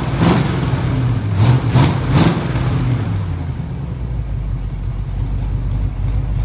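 Freshly rebuilt Oldsmobile 403 V8 with a new Comp Cams camshaft running on its first start, during cam break-in. It revs up and down a couple of times in the first two seconds or so, then settles to steadier, lower running.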